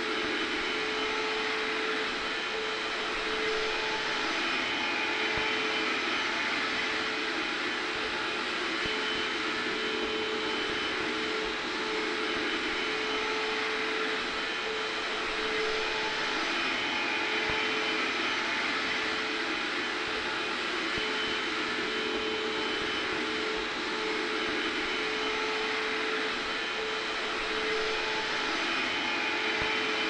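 Hair dryer blowing steadily with a vacuum cleaner running under it: a continuous rush of air with a steady motor hum, swelling and easing slightly every few seconds.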